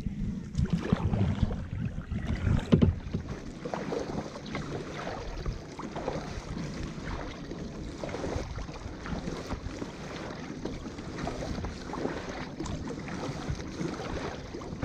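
Kayak paddle strokes through calm lake water: repeated soft splashes and drips as the blades dip and lift, about one every second or so. There is wind rumble on the microphone, heaviest in the first few seconds.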